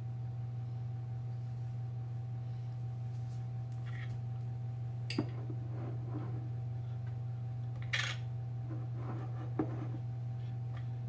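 A few sharp clinks and knocks from a glass sauce jar, its lid and a utensil being handled on a kitchen counter. Three of them are louder, about five, eight and nine and a half seconds in. A steady low hum runs underneath.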